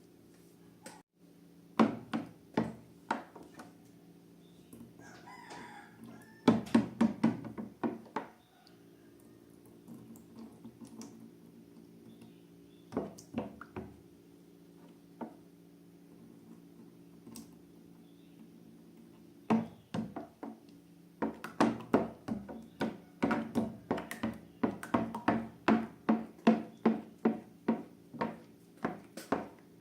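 Slime being squeezed and worked by hand, making sharp wet clicks and pops: a few scattered ones, then a quick run of about two to three a second in the second half. A steady low hum runs underneath.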